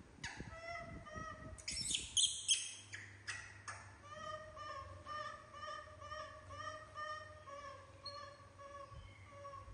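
Young macaques calling: a run of short, high whimpering coos, about two a second, with a louder, harsher squealing stretch around two seconds in.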